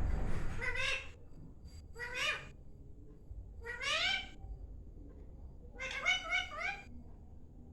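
A pet parrot giving four short calls, each rising in pitch, spaced about a second or two apart. A brief rustling noise comes at the very start.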